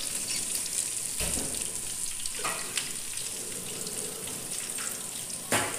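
Hot oil sizzling steadily as crumb-coated chicken drumsticks deep-fry, with a couple of soft knocks and a short sharper clatter near the end.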